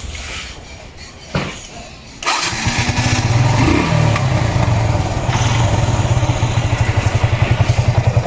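A Yamaha FZS single-cylinder four-stroke motorcycle engine starts about two seconds in, rises briefly, then idles with an even, rapid pulsing. The mechanic puts the engine's remaining bad noise at idle down to a worn clutch basket mounting, with the starter clutch roller bolt freshly tightened.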